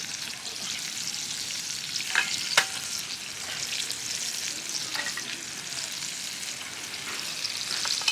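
Food frying, a steady sizzling hiss with scattered crackles, and two sharper pops or clicks a little over two seconds in.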